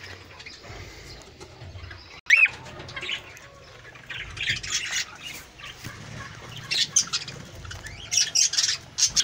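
A flock of budgerigars chattering and squawking, many short high calls at once. The calls get thicker and louder over the second half.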